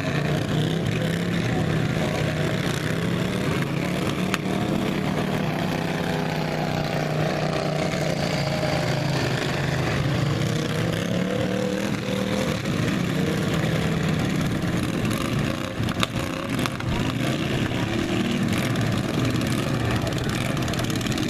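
Several lawn mower engines running and revving in a race, their pitch rising and falling.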